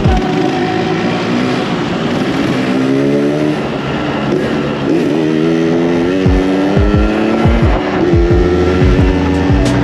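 Yamaha RX-King two-stroke single-cylinder motorcycle engine being ridden, its note climbing in pitch and dropping back twice as it pulls through the gears, then holding steady. The exhaust is tuned for the deep 'ngorok' (snoring) sound.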